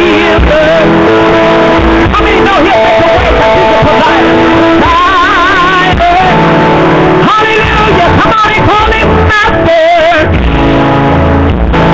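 Loud church worship music: sustained chords with a voice singing over them, wavering on held notes.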